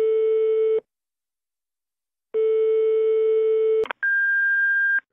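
Telephone ringback tone ringing twice, a steady low tone, followed by a click as the line picks up and a higher answering-machine beep lasting about a second, the signal to start leaving a message.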